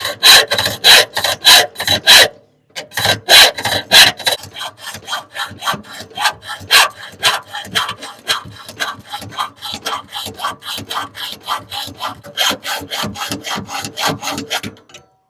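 Hand tool worked back and forth on a wheelbarrow handle in quick, even strokes, about three to four a second. The strokes break off briefly about two seconds in, then run on and die away just before the end.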